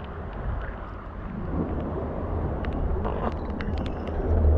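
Wind rumbling on the microphone over the wash of sea water against the rocks, growing slightly louder, with a few small clicks of gear being handled near the end.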